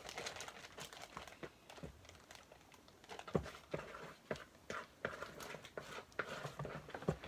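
Slime being added to a batch and worked by hand, making irregular quick clicks and pops, one sharper than the rest about three and a half seconds in.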